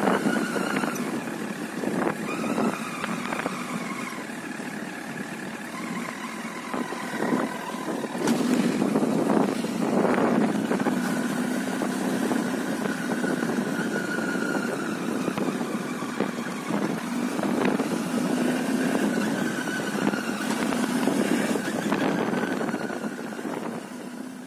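Honda CBR1000 Fireblade inline-four engine running, with a high whine that rises and falls over its hum and scattered knocks. This is the noise the owner calls unbearable, which comes when decelerating or letting out the clutch but not in neutral; its cause is unknown.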